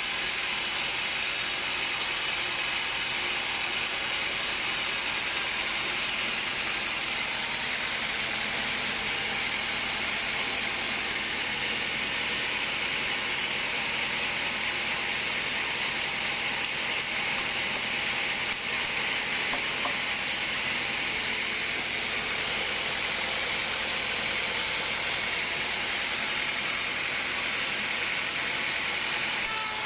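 Sawmill machinery running steadily, most likely a saw cutting through wood: an even, hissing mechanical noise that holds at one level.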